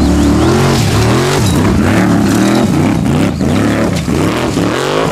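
Off-road rock-climbing buggy's engine revving hard as it climbs a steep dirt slope. Its pitch rises and falls again and again.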